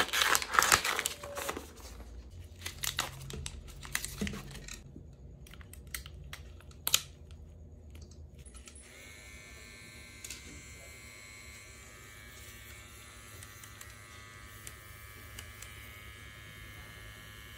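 Plastic cartridge packaging crinkling and tearing open, then a few clicks with one sharp click as the needle cartridge is fitted to the pen. From about nine seconds on, a quiet steady motor hum, which fits the CNC S1 brushless wireless tattoo pen running.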